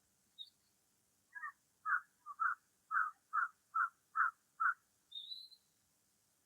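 Birds calling: a short high chirp, then a run of about eight calls at about two a second, and a brief high warbling note near the end.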